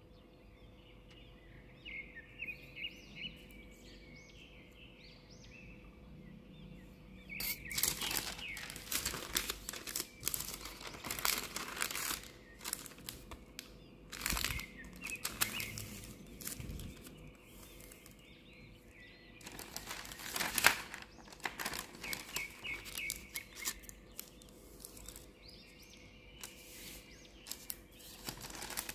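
A sheet of thin printed sandwich wrapping paper being folded and creased by hand on a silicone mat, rustling and crinkling in stretches. Birds chirp faintly in the background, mostly in the first few seconds and near the end.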